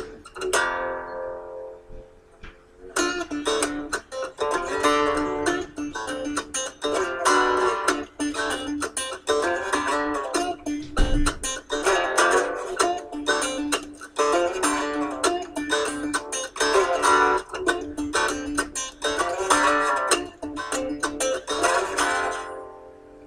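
Background music of quickly plucked strings, thin for the first few seconds, then a busy run of picked notes that fades out near the end.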